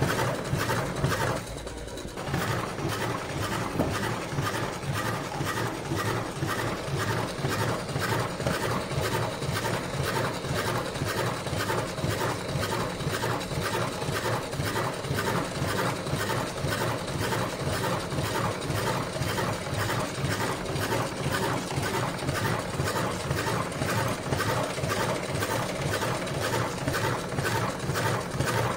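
Electric cigarette-tube filling machine running, its cam-driven mechanism clattering in a fast, even rhythm as the drum feeds empty tubes and fills them with tobacco. The rhythm eases briefly about two seconds in.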